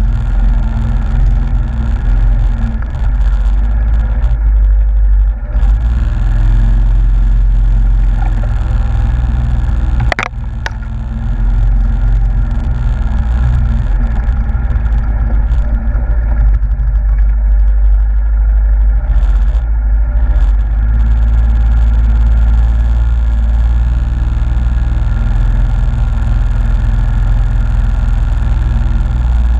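Yamaha Grizzly ATV's single-cylinder engine running as it is ridden through mud, with one sharp knock about ten seconds in.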